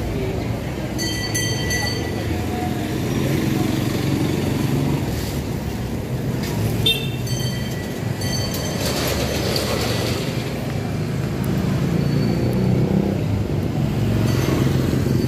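Busy city street ambience: steady traffic rumble from passing cars and motorcycles with background voices of people on the sidewalk, and a few brief high-pitched chirps about a second in and again around seven seconds.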